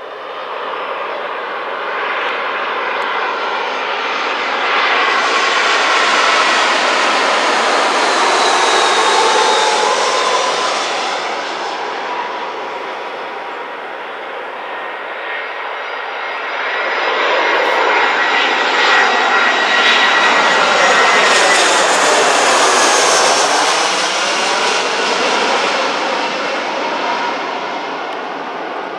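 Two Airbus A320-family jet airliners on landing approach pass low overhead one after the other. Each one swells to a loud jet-engine rush with a high whine that slides down in pitch as it goes by, then fades. The first is loudest in the first third, the second a little past the middle.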